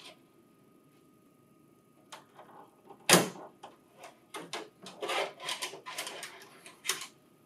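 Hard plastic clicks and knocks as a printer's convenience stapler is slid off its mount and its power cable and adapter are handled. A single sharp knock comes about three seconds in, followed by a run of smaller clicks and rustles.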